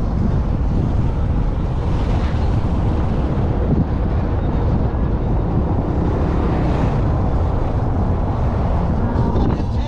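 Wind buffeting a microphone on the outside of a moving vehicle, over road and engine noise: a steady, dense low rumble.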